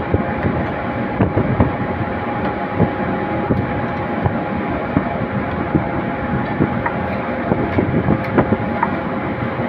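A loud, steady roar of kitchen noise with a faint steady hum. Over it come light, irregular knocks and clatter of a wooden rolling pin rolling out dough rounds on a marble slab.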